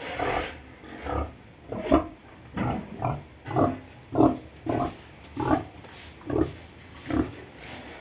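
A pig grunting in a steady run of about a dozen short, low grunts, one every half-second or so.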